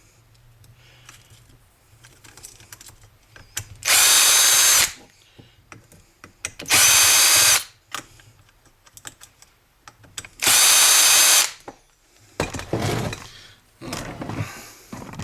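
Cordless power drill-driver backing out screws from a vacuum cleaner's motor housing: three short bursts of motor whine, each under a second. Small clicks and handling of parts come between the bursts.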